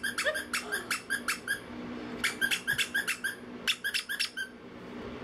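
Young puppy yipping in three quick runs of short high-pitched cries, several a second, falling silent about four and a half seconds in.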